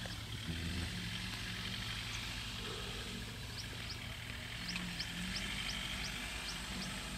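Outdoor bush ambience: a steady low rumble, with short high rising chirps repeating about twice a second from about three seconds in.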